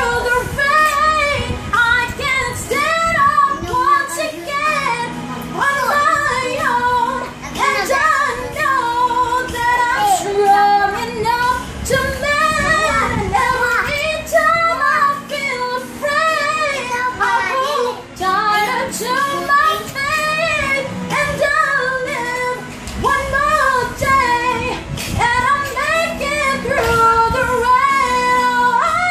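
A woman singing a slow pop ballad, holding long notes with a wide vibrato.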